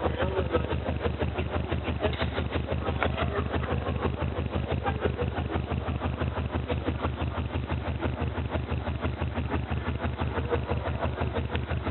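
Low bass tone from a loudspeaker, reflected off the room's walls, chopping in a fast, even pulse that sounds like a helicopter's rotor.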